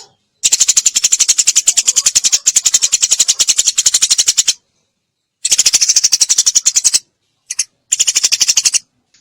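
Eurasian tree sparrow (burung gereja) giving its rapid rattling 'tembakan' chatter: fast, evenly spaced high clicking notes, about a dozen a second, in a long run of about four seconds followed by shorter runs with brief gaps.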